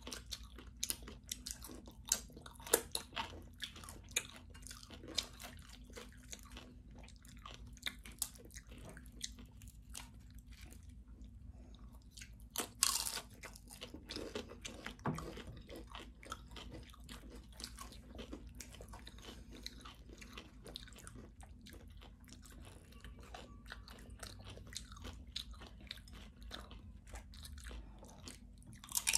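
Loaded nachos being eaten: tortilla chips bitten and chewed, a running series of sharp crunches and crackles, with a louder crunch about thirteen seconds in.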